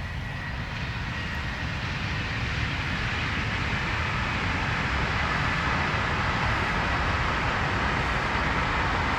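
An electric train approaching, its rumble and rushing noise growing steadily louder, with a faint high whine held throughout.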